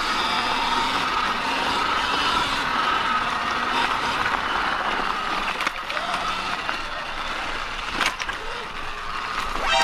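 Sur-Ron X electric dirt bike riding a dirt trail: the electric motor's whine wavers in pitch with speed over the noise of the tyres on dirt. A sharp knock comes about eight seconds in.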